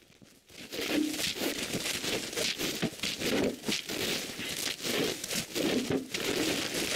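Bags of rocks being handled and moved: irregular rustling and crinkling of the bags with scraping, starting about half a second in.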